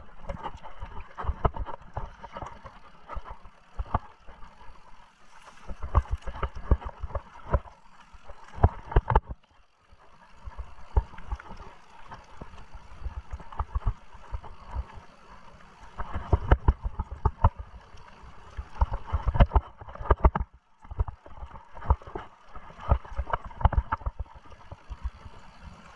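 Mountain bike ridden over a rough trail: rapid, irregular clattering and thumping as the bike and the camera mounted on it take the bumps, over a steady rushing noise. The rattle eases off briefly twice, about a third and four-fifths of the way through.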